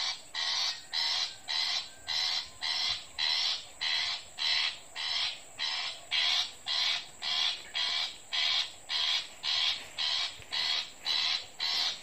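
Recorded long-tailed shrike calls played as a lure from an MP3 player. The same harsh call repeats at an even beat of about two a second.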